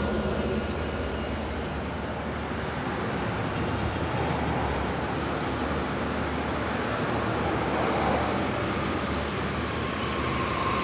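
Steady road traffic noise, an even wash of passing vehicles with no single event standing out.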